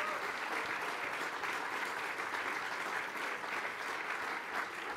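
An audience applauding, a dense, steady clatter of many hands clapping.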